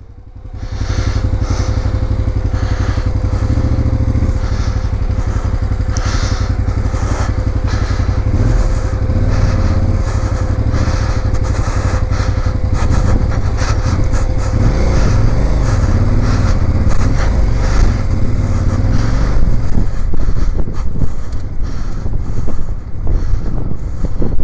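Motorcycle engine running while riding over a rough, rocky dirt track, fading in over the first second. A steady whine runs under it, with knocks and clatter from the bike over the rough ground that grow busier near the end.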